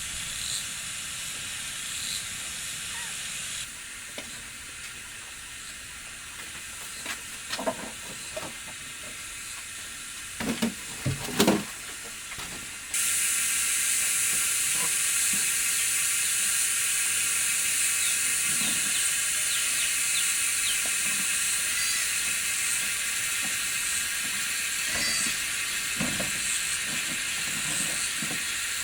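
A steady high hiss, with a few knocks and clatters in the middle, the loudest about eleven seconds in.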